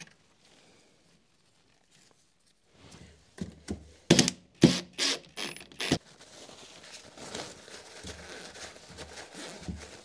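A cluster of sharp knocks and clacks a few seconds in, like metal parts and tools being handled and set down on a workbench, followed by quieter scraping and rubbing.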